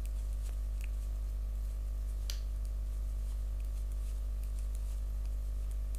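A steady low hum, with a few faint clicks of metal knitting needles as stitches are worked, one a little clearer about two seconds in.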